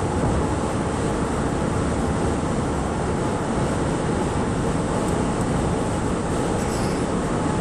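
Steady road noise inside a car's cabin at freeway speed: an even, low rumble of tyres and engine.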